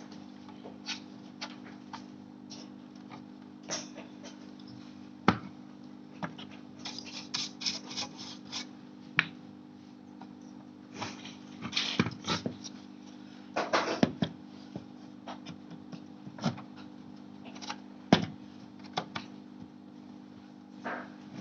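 Scattered clicks, taps and light knocks of hard plastic and metal parts being handled, some in quick runs and a few sharper single knocks, over a steady low hum.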